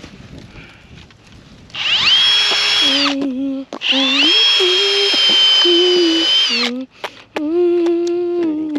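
Power drill driving screws into wood: three runs of motor whine, starting about two seconds in, the first rising in pitch as it spins up, with a lower tone that sags and shifts as each screw pulls in.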